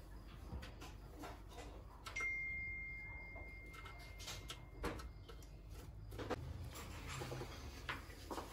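Quiet room with a few faint knocks and clicks; about two seconds in, a single steady high beep sounds for nearly two seconds.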